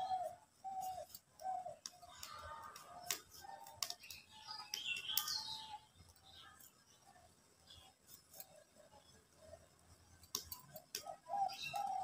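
Birds calling, one repeating a short cooing note over and over in runs, with a few higher chirps; scattered sharp clicks, such as a knife cutting on a board, come in between.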